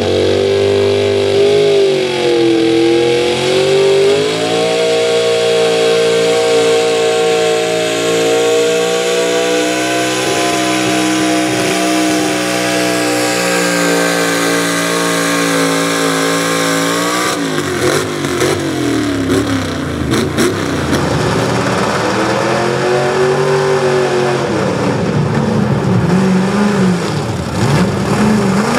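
Pulling truck's engine held at high revs under full throttle, its note wavering slightly. About seventeen seconds in the note drops away suddenly amid a few sharp pops, then the engine runs lower, revving up and down.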